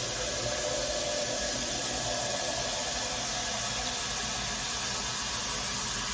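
Micro-bubble shower head spraying water steadily, an even hissing rush.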